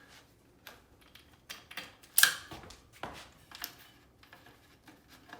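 Scattered metallic clicks and light knocks of a bicycle's brake being released and the bike handled, the loudest a sharp click a little over two seconds in.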